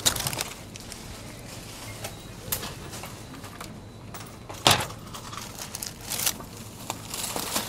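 Groceries being unloaded from a shopping trolley onto a supermarket checkout belt: plastic bags rustling and items set down in short, scattered clicks. One sharp knock a little past halfway is the loudest sound.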